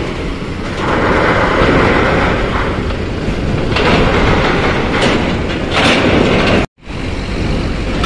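Intercity bus moving past with its engine running, heard as a loud, noisy rumble that swells in a few surges. The sound drops out abruptly for a moment near the end.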